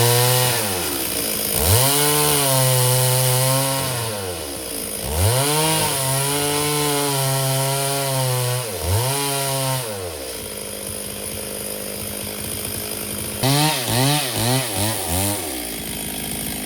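Stihl 070 two-stroke chainsaw revved up and held at full throttle three times, dropping back toward idle between. It then idles, with a quick run of about five short throttle blips near the end before settling back to idle.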